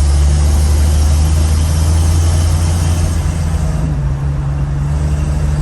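1975 AM General DJ5-D postal Jeep's engine pulling under hard throttle, heard from inside the vehicle, its note shifting about three to four seconds in. The strange noise it had been making is gone after the repair; its owner finds it much better.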